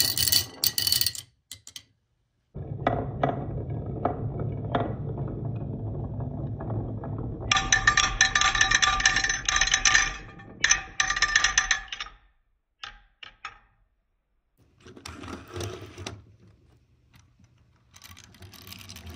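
Glass marbles rolling down a wooden wave-track slope with a low rumble and dropping into a toy truck's trailer, clinking against one another and the trailer bed. Ringing glass clinks come thick for a few seconds in the middle as the trailer fills, then only scattered clicks and some handling of the toy near the end.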